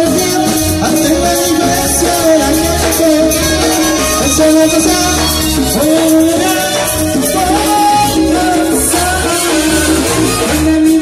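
Live Latin dance music from a band amplified through large PA speakers: a saxophone melody over a steady pulsing bass beat with shaker percussion.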